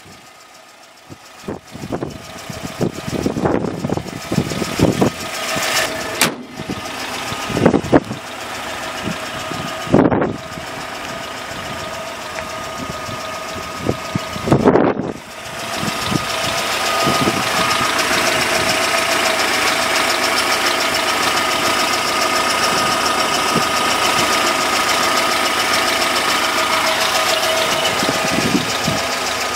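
A 2013 GAZ Gazelle Business's 2.9-litre eight-valve inline-four engine idling steadily. Over the first half several sudden loud knocks and thumps stand out. The idle is louder and steadier in the second half.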